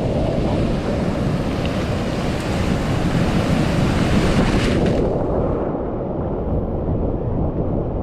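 Ocean surf breaking and washing over a camera held at the waterline: a rushing hiss of breaking water and spray that builds, then cuts off abruptly about five seconds in, leaving a lower churning of foam.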